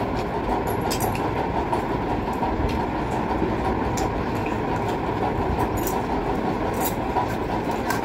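Steady rushing noise of an electric fan running, with a few faint clicks of eating over it.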